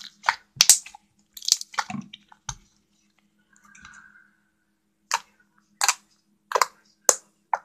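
Fluffy shaving-cream slime being squeezed and pulled by hand, giving short wet squishing pops in irregular bursts, a cluster near the start and then one about every half second near the end.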